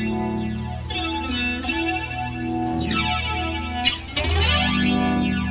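Electric guitar played through an effects box into a vacuum-tube PA amplifier and its speaker. Picked chords and notes ring out, a new one about every second, over a steady low hum.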